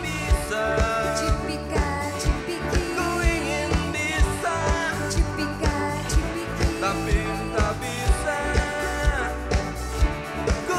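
Live pop-rock band playing: drums keeping a steady beat of about two strikes a second, electric bass and keyboard underneath, and lead vocals singing over them.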